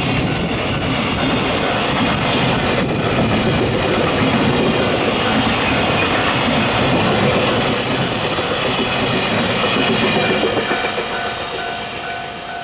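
A train passing over a railway level crossing, its wheels clattering over the rails, loud and steady for about ten seconds before fading away. A steady tone comes in near the end.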